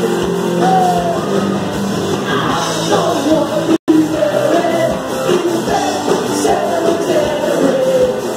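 Live rock band playing, with electric guitar and a woman singing into a microphone. The sound drops out for an instant about four seconds in.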